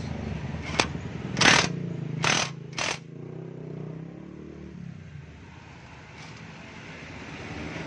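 Cordless impact wrench on a long socket extension, running in three short bursts as it tightens the nut on the starter's chain sprocket, over a steady low hum.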